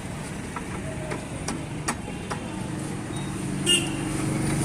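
Light metallic clicks and taps as the steel front axle is worked through a motorcycle wheel hub, with a louder ringing metal clink near the end. A vehicle engine hums underneath from about halfway.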